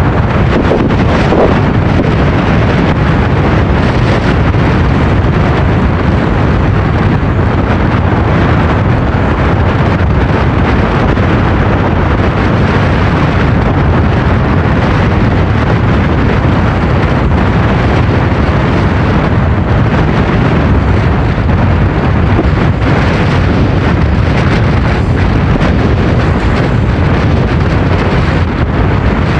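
Strong wind buffeting a mobile phone's microphone aboard a moving boat: a loud, steady rumble with a hiss above it.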